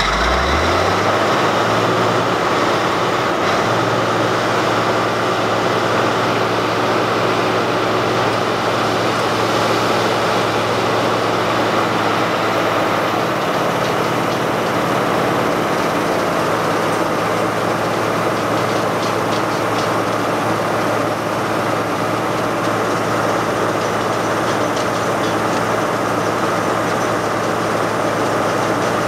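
Tree grinder's engine running steadily, its pitch climbing in the first second as it comes up to speed, then holding at an even speed.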